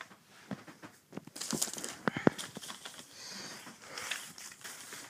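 Sheets of paper rustling and crinkling as paper cutout figures are handled, with scattered light taps and two sharp clicks a little after two seconds in.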